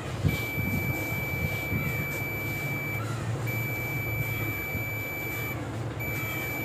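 Digital multimeter's continuity buzzer giving three long, steady beeps, each about two seconds, as the test probes are held on the pins of an inverter AC's IPM (intelligent power module). A low steady hum runs underneath.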